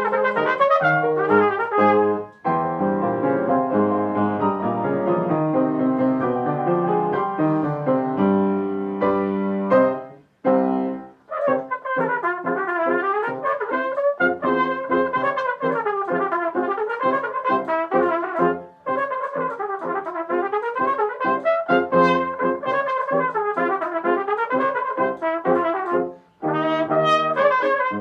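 Solo trumpet playing quick runs of notes that rise and fall, with short breaks between phrases about 2.5, 10.5, 19 and 26 seconds in.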